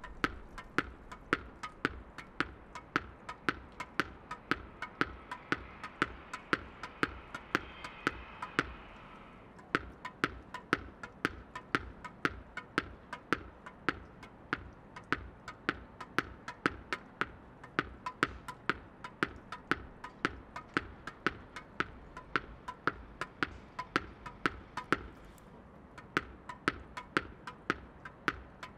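A tennis ball being dribbled downward with a tennis racket onto stone paving. The ball strikes the ground and the racket strings in turn, making sharp taps in a steady rhythm of about two to three a second.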